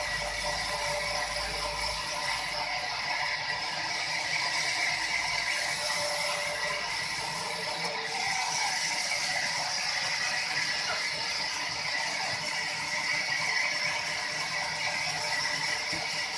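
Sawmill machinery running with a steady, dense mechanical rattle.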